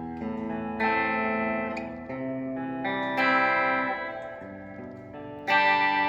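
Fender Meteora electric guitar played through an amp with its pickups in full humbucker mode: about five chords struck in turn, each left to ring.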